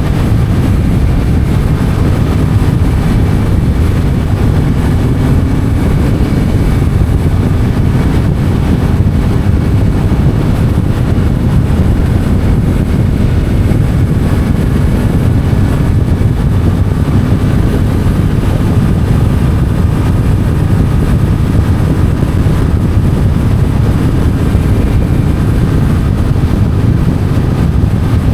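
Yamaha MT-07's parallel-twin engine running through an Akrapovic titanium exhaust while riding at a fairly steady speed, a loud continuous rumble with no big revs.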